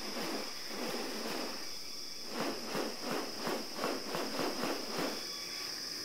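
Rainforest ambience: a steady, high-pitched insect drone. In the middle a rapid run of evenly spaced pulses, about five a second, lasts nearly three seconds.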